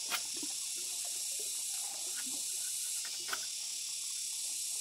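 Two sharp knife strikes on a bamboo pole, one right at the start and one about three seconds later, over a steady high insect hiss that swells and fades.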